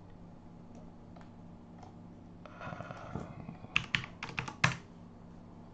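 Keystrokes and clicks on a computer keyboard: a few faint taps, a short rustle, then a quick run of sharper keystrokes about four seconds in.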